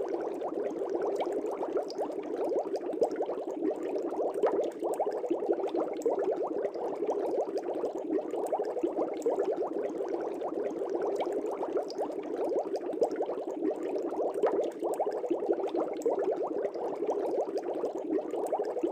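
Aquarium air bubbles rising and bubbling steadily through the water of a fish tank, a dense stream of small pops and gurgles.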